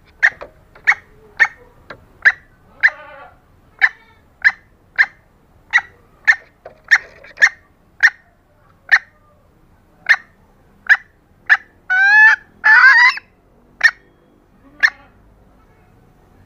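Junglefowl hen calls played as a hunting lure: a run of short, sharp clucks about two a second. Around twelve seconds in come two longer calls that rise and fall in pitch, then two more clucks before the calling stops.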